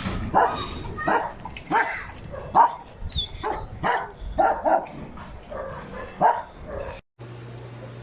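A dog barking repeatedly, about ten barks over seven seconds. Near the end the sound cuts off abruptly and a steady low hum follows.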